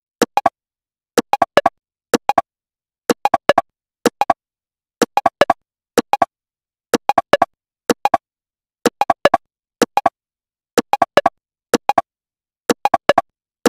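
Opening of a minimal techno track: short electronic clicks in tight groups of three or four, repeating about once a second, with silence between them and no bass or kick drum yet.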